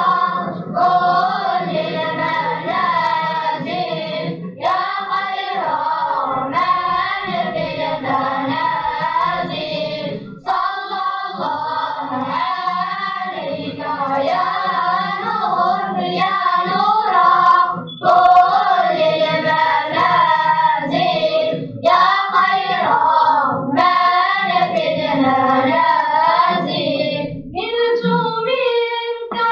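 A group of children singing together, a vocal ensemble's sung melody running in phrases with brief pauses for breath between them.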